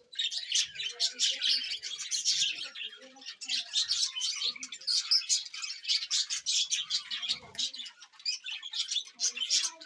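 A flock of small birds chirping continuously, a dense overlapping mass of short, high calls.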